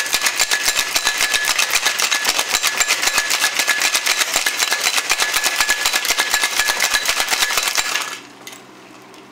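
Ice cubes rattling hard inside a metal cocktail shaker shaken fast, several strikes a second, stopping abruptly about eight seconds in.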